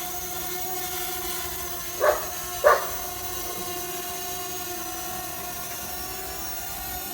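Eachine EX4 Pro quadcopter's motors and propellers humming steadily in flight. Two short, sharp sounds cut in about two seconds in and again about half a second later.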